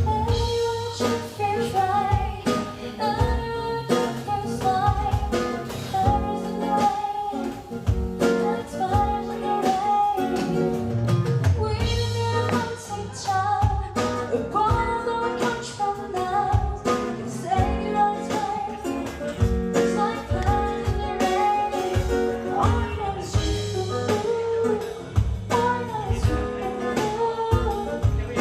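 A song: a female voice singing over guitar accompaniment with a steady beat.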